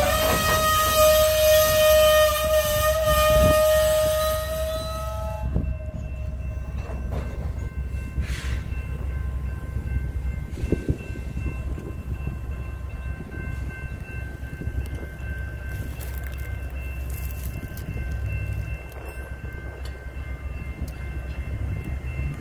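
Locomotive horn sounding one long blast that stops about five and a half seconds in. After it comes the steady low rumble of a cement hopper car rolling slowly over the tracks.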